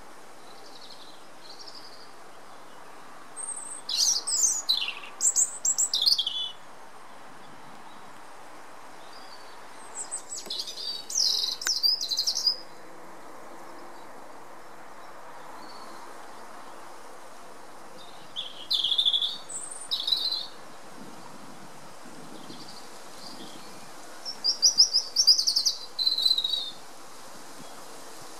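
European robin singing: four separate phrases of high, rapid, sliding notes, each two to three seconds long, with pauses of several seconds between them.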